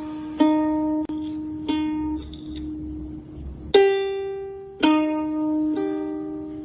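Background music of single plucked-string notes, each starting sharply and ringing out, about a second apart.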